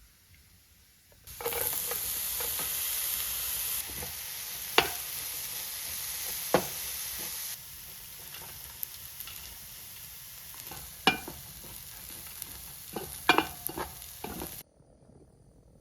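Food sizzling loudly in a hot pan, starting about a second in and cutting off suddenly near the end. A utensil stirs and clacks against the pan several times.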